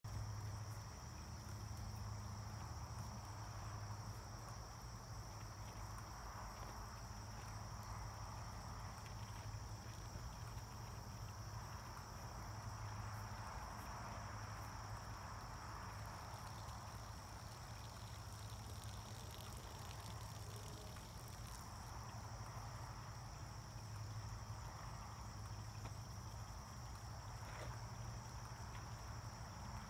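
Faint, steady high-pitched chirring of insects, with a low steady hum underneath.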